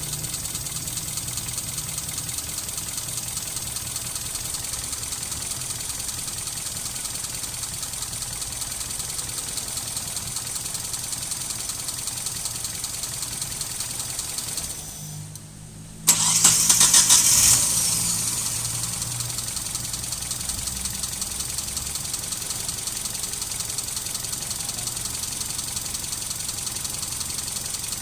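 Mitsubishi 4G33 four-cylinder carbureted engine idling steadily, then stopping a little past halfway through. After about a second of quiet it is cranked and restarts with a short loud burst, then settles back to idle while its ignition timing is set by ear to cure a rough idle blamed on a vacuum leak.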